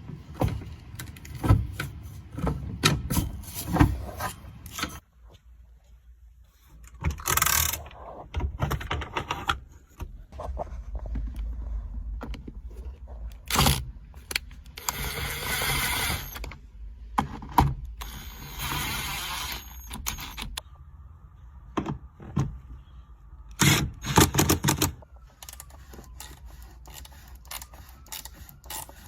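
Hand work on a car's parking-brake handle and cable: irregular metallic clicks, knocks and rattles of tools and parts, broken by several short raspy bursts.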